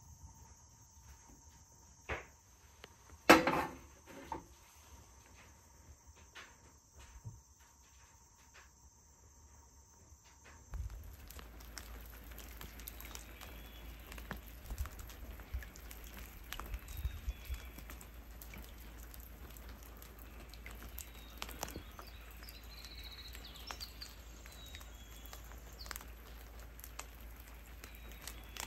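Rain falling steadily on a lake, an even pattering of drops on the water that starts suddenly about eleven seconds in. Before it there are quiet room sounds with a few small clicks and one sharp knock about three seconds in, the loudest moment.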